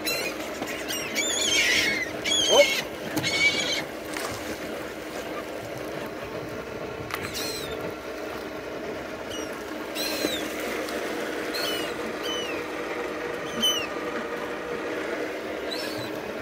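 Pit bull whining in short, high squeaks, repeated every second or two, with louder bursts in the first few seconds, over a steady low hum.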